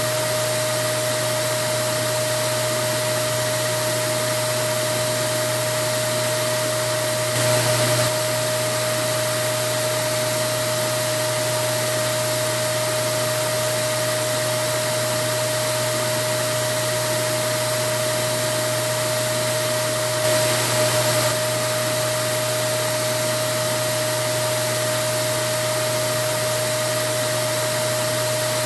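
Vacuum cleaner running steadily: an even rushing noise with a constant motor whine. Twice, about seven and twenty seconds in, it briefly gets a little louder.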